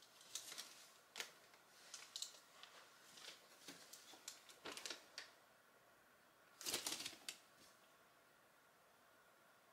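Faint handling noise as a plastic bag and the camera are held and moved: scattered light clicks and short crinkly rustles, with a louder burst of rustling about seven seconds in.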